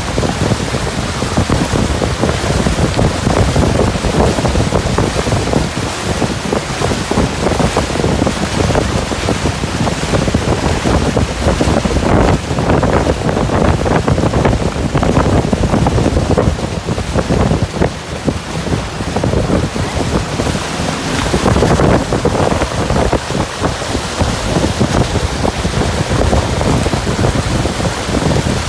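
Wind buffeting the microphone and water rushing past a motorboat under way, a loud, steady rumble that swells and dips.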